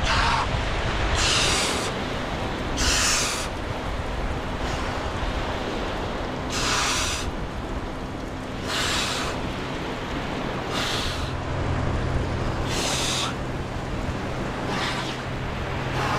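A man breathing hard under a cold outdoor shower, one loud, forceful breath about every two seconds against the cold shock, over the steady hiss of the spray and the surf.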